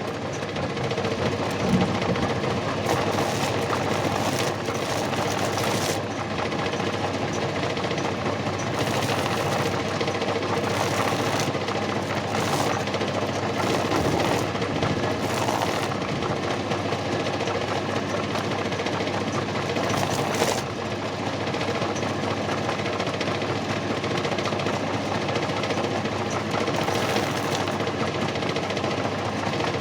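A homemade lathe driven by a used washing-machine motor, running steadily with a constant hum. Several short, louder bursts of noise come at irregular moments.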